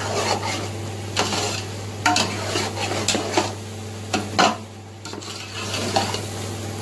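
Metal spoon stirring and scraping through grated carrots, sugar and butter in a large metal pot of gajar halwa, with irregular scrapes and clinks against the pot's sides, a brief lull about four and a half seconds in, and a steady low hum underneath.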